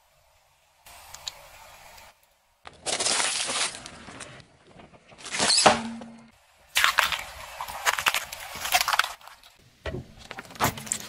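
Objects being crushed under a car tyre: several separate bursts of crackling and crunching, the loudest a sharp crack a little past the middle, with a cluster of sharp cracks near the end.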